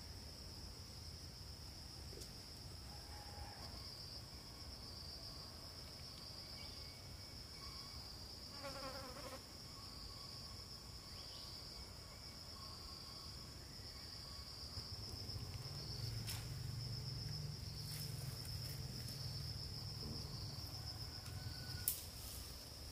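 Insects chirring in a steady, high-pitched drone that pulses slightly. A low rumble joins partway through, and there is a single sharp click near the end.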